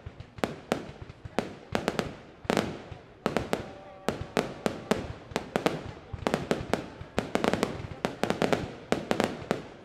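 Fireworks display: aerial shells bursting in a rapid, irregular barrage of sharp bangs, about three or four a second, overlapping and each dying away briefly.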